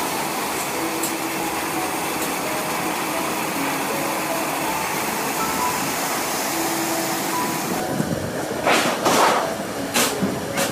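Factory machinery running with a steady rumble as a cleanroom sandwich panel travels along a roller conveyor line. Near the end come two or three loud rushing, hissing bursts.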